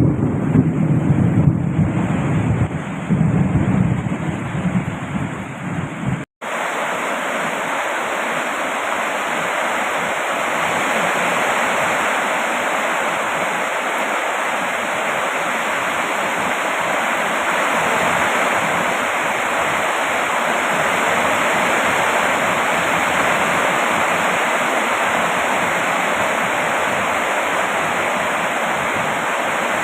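Steady rain falling as an even hiss. For the first six seconds a gusting low rumble runs under it; then the sound drops out for an instant and the rain continues evenly without the rumble.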